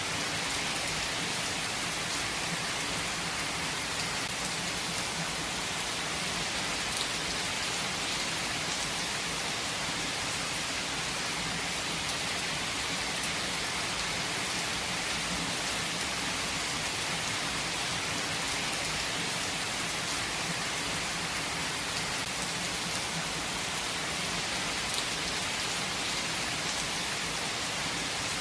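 Steady heavy rain falling, an even hiss with the odd distinct drop striking.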